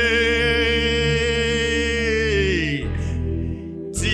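Worship song: a singer holds one long note over low, sustained instrumental backing. The note slides down and ends about two and a half seconds in, and the next sung phrase comes in near the end.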